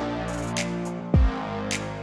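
Instrumental electronic background music with a beat, with a deep kick drum hit about a second in.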